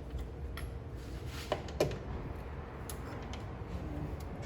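Irregular metal clicks and knocks from hand tools on the bolts holding a car's AC compressor, with two louder clinks that ring briefly about one and a half and two seconds in. A steady low hum runs underneath.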